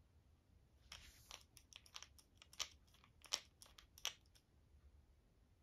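Faint, scattered small clicks and scrapes of a carburetor main jet and its holder being handled and threaded together, between about one and four seconds in.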